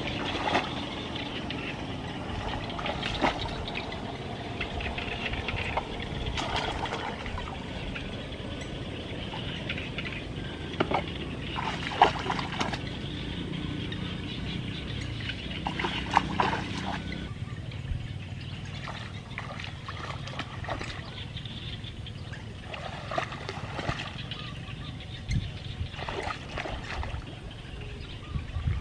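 Water sloshing and trickling, with a few sharp, louder sounds breaking through now and then.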